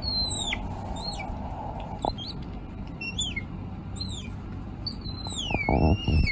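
High, squeaky calls from a small animal, about five of them, each sliding downward in pitch; the last is longer and wavers up and down. A low rumble underneath swells briefly near the end.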